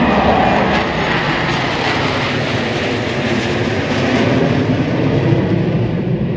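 Military jet aircraft flying past, a loud steady rushing jet roar.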